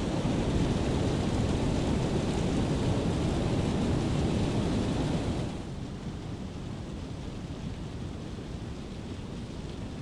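Steady rushing of water from a thin waterfall pouring down a sea cliff, with ocean surf behind. It is loud at first and drops to a softer rush about five and a half seconds in.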